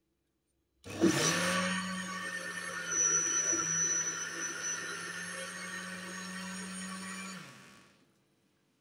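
Elite countertop blender switched on about a second in, its motor running at a steady pitch as it whips a liquid semolina-and-yeast baghrir batter, then switched off and spinning down near the end.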